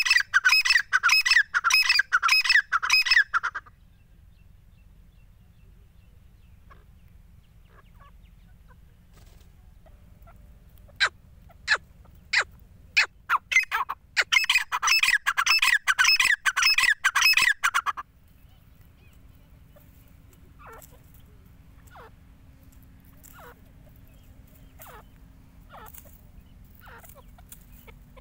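Grey francolin calling: a loud, rapid run of repeated notes for the first few seconds, then a handful of single sharp notes about eleven seconds in that lead into a second rapid run lasting about four seconds. Fainter scattered calls follow.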